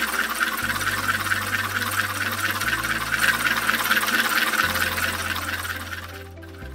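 Homemade electromagnetic ring accelerator running at speed: the projectile whizzes around its 3D-printed track as the copper coils switch on and off in turn, giving a loud, high-pitched whir that eases off near the end.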